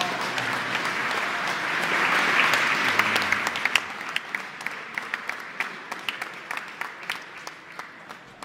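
Crowd applauding. The clapping builds to a peak about two to three seconds in, then thins to scattered single claps that die away.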